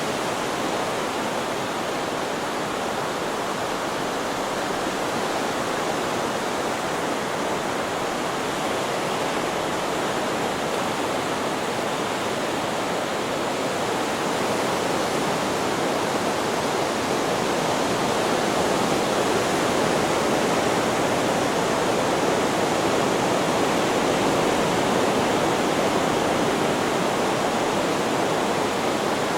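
Steady rushing hiss of a white-noise sleep track, even and unbroken with no separate wave breaks, growing slightly louder about halfway through.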